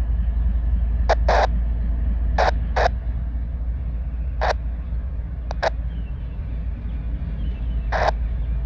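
A train rolling past: a steady low rumble, with short sharp clacks at irregular intervals, some in quick pairs, from wheels passing over rail joints.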